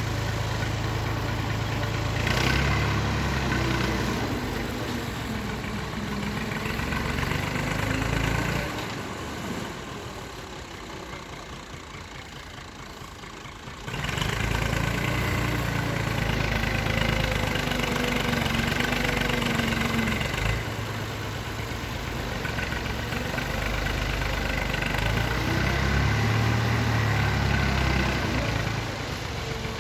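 Excavator's diesel engine running and revving as the machine works, its pitch rising and falling. It drops quieter for a few seconds near the middle, then comes back suddenly at full level.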